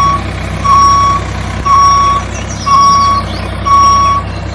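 A vehicle reversing alarm beeping about once a second, each beep about half a second long, over a steady low engine rumble.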